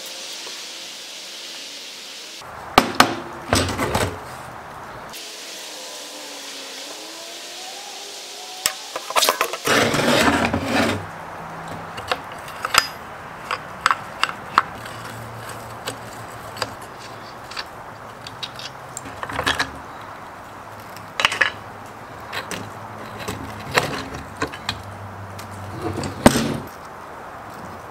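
Hand tools and metal parts of an old Homelite ZIP chainsaw clinking, knocking and scraping as it is handled for restoration. Scattered separate knocks, with a longer stretch of scraping about ten seconds in.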